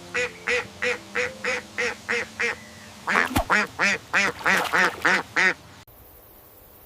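Duck quacking: a steady run of short quacks about three a second, then a faster, louder run of quacks that stops about five and a half seconds in.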